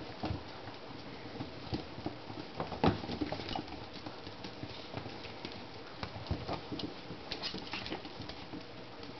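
Young Shichon puppies moving about, making an irregular patter of light clicks, taps and scuffles, with one louder knock about three seconds in.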